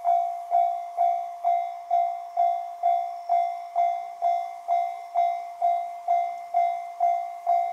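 Japanese railway level-crossing warning bell ringing steadily: a single repeated 'kan-kan' tone struck a little over twice a second, each strike fading before the next.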